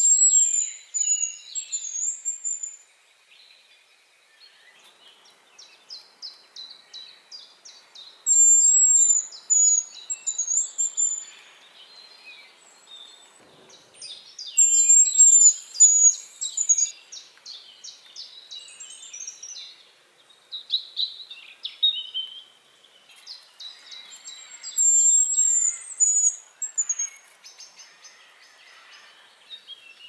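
Common starling nestling calling from its nest hole in a tree: several bouts of rapid, shrill, repeated calls, each two to three seconds long, with high whistles over them and quieter chirping in between.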